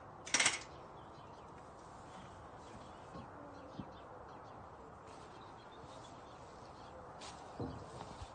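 A folding metal mounting step tips over and clatters onto the ground about half a second in. After it come faint birdsong and a few soft knocks.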